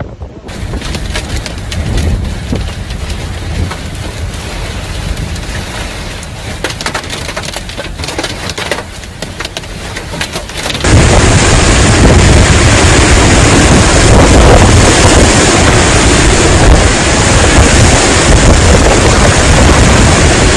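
Severe storm: rain and wind making a steady rushing noise with many small crackles. About eleven seconds in it jumps abruptly to a much louder, harsher rushing that nearly overloads the recording.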